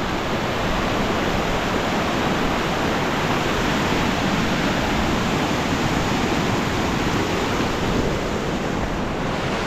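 Steady rush of running water from a glacial meltwater stream.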